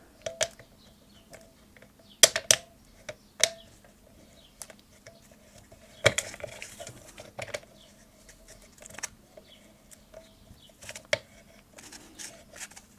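Small irregular clicks and knocks of a battery being fitted by hand into the battery compartment of a DP-4 roentgenmeter, metal contacts and the case being handled, a few sharp ticks spaced seconds apart.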